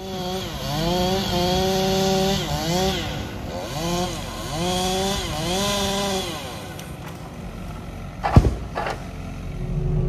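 Two-stroke chainsaw running at high revs in several long bursts, the pitch rising as the throttle opens and dipping between bursts. A sharp knock comes about eight seconds in.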